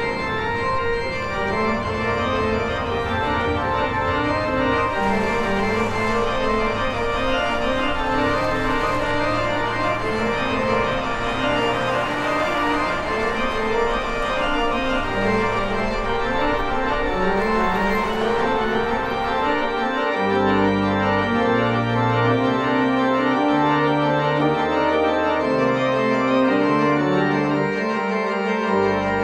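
Pipe organ, a 1967 Flentrop mechanical-action instrument, playing a piece in full chords of sustained notes. About twenty seconds in, the high notes drop away and a sparser line over a stepping bass carries on.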